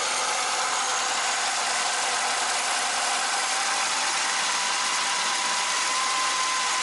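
Ford Transit Mk1 van's petrol engine running steadily, just brought back to life after repairs to the distributor contact points and carburettor. A thin whine comes in about halfway through and holds.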